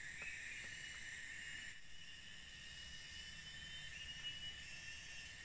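A steady, high-pitched chorus of forest insects with a hiss above it. It drops suddenly in level a little under two seconds in, then carries on more faintly.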